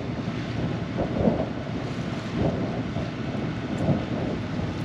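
Wind buffeting the microphone in gusts, with water washing past the hull, over the low running of the catamaran's engine in reverse as it backs down on the anchor.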